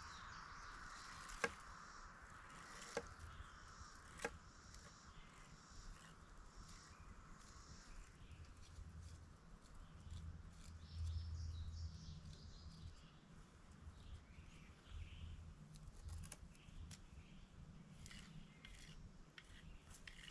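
Faint rustling of dry plant stalks being handled and stripped of their leaves, with a few sharp snaps in the first few seconds.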